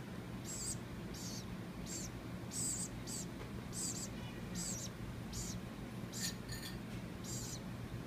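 Baby woodpecker chirping: a string of short, high-pitched calls, about one and a half a second, over a faint steady low hum.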